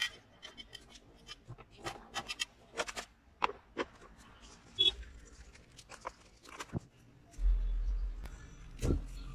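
Scattered clicks, taps and light knocks of plastic and metal parts being handled as the engine's plastic blower housing and recoil starter cover are fitted back onto the Briggs & Stratton lawn mower engine. A low rumble comes in about seven seconds in.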